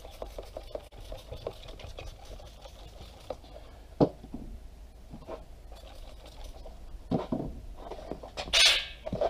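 Scattered clicks and knocks as a truck tire is handled and soapy water is sprayed around its bead to help it seal, with a sharper click about four seconds in and a short hiss near the end.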